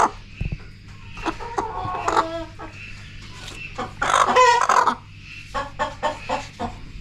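Kadaknath (karimkozhi) black chicken clucking and squawking: a few calls about two seconds in, the loudest call about four seconds in, then a quick run of short clucks.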